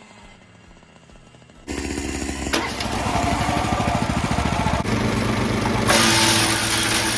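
52cc Wild Badger gas brush cutter running at high revs, starting abruptly after about two seconds of low background. It turns louder and hissier about six seconds in.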